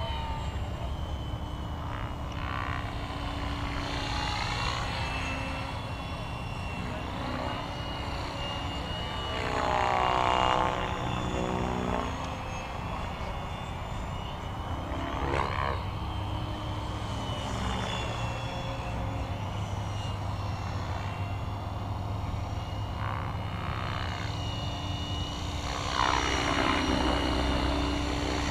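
Align T-Rex 550E electric RC helicopter in flight: its Kontronik motor whine and rotor noise run throughout, with the pitch sweeping up and down as it passes. It gets louder about ten seconds in and again near the end.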